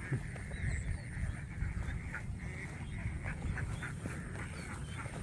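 Domestic ducks quacking, a scattered series of short calls, over a steady low rumble.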